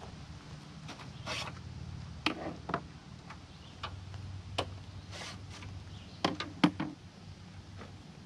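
Scattered light clicks and taps of hands working the plastic grille of a 2003 GMC Sierra 2500HD and its retaining clips, at irregular moments, over a faint steady low hum.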